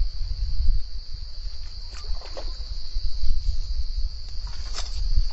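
Steady high-pitched insect chirring, with wind rumbling on the microphone; a few faint scrapes or ticks come about two seconds in and again near the end.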